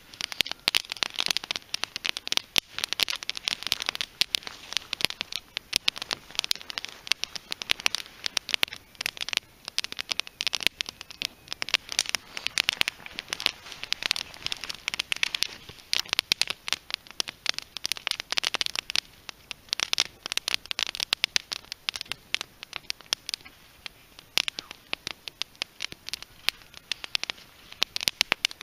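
Fire of split green western red cedar heartwood crackling with dense, irregular sharp pops that come in waves of heavier crackling.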